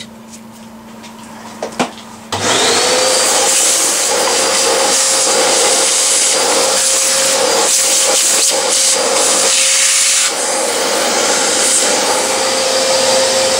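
An electric drill spins up sharply about two seconds in and runs at a steady pitch while cutting into the back of an old car horn, starting to wind down right at the end. Before it starts there is light handling with a couple of knocks.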